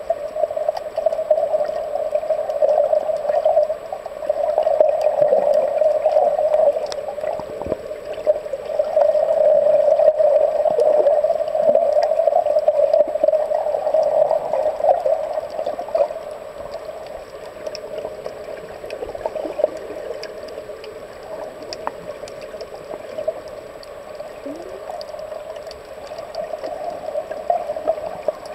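Muffled underwater sound recorded by a submerged camera: a steady, murky water rush that swells and fades every few seconds, with scattered faint clicks.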